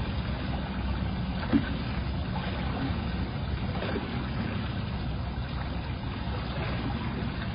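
Steady low rumble and hiss of background noise, with a single short knock about one and a half seconds in.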